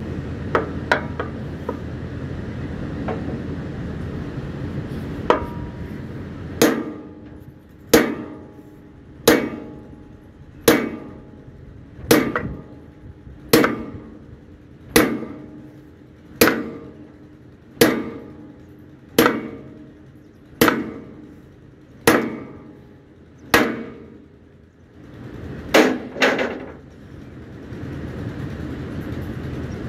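A hammer striking metal in slow, even blows, about one every one and a half seconds, each blow ringing on afterwards, with two quick blows near the end. A steady rushing background noise runs before the blows begin and returns after they stop.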